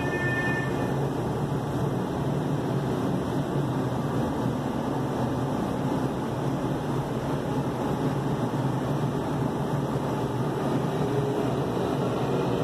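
Steady background noise with no distinct events.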